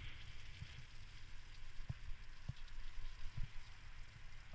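Bicycle tyres rolling along a wet, muddy towpath, a steady wet hiss over a low rumble, with a few sharp knocks in the middle as the bike jolts over bumps.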